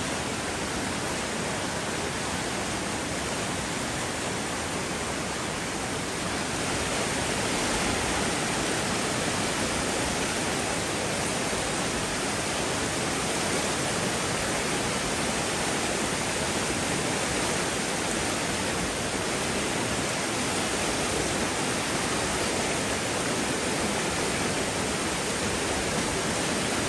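Fast-flowing stream rushing through rocky rapids: a steady, even rush of water, a little louder from about seven seconds in.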